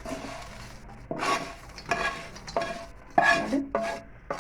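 A spoon stirring fried corn chips with spices in a pan, scraping and clinking against it in about six separate strokes.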